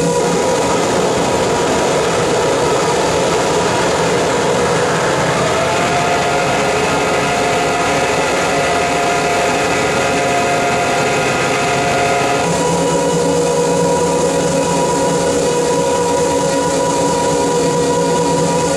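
Harsh noise wall played live on a table of effects pedals and electronics: a loud, dense, unbroken wash of noise with steady drone tones inside it. About twelve seconds in the tones switch abruptly to a different set.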